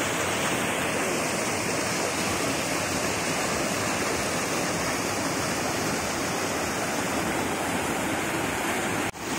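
Whitewater rushing steadily down a narrow rock channel. The sound drops out briefly near the end.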